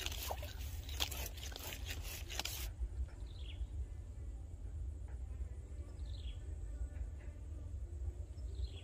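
Rustling and clicking as the fishing pole is handled among grass for the first two and a half seconds. Then a quieter low rumble with three short falling bird chirps, about two and a half seconds apart.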